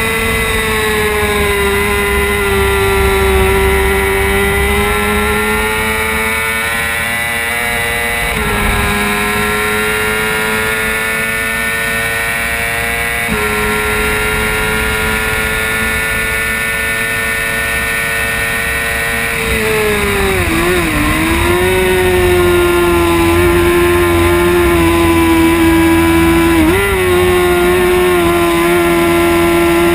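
Suzuki GSX-R600 inline-four engine running at high revs, heard from an onboard camera with wind rushing on the microphone. The engine note holds fairly steady, steps in pitch about eight and thirteen seconds in, dips sharply around twenty-one seconds and blips briefly near twenty-seven seconds.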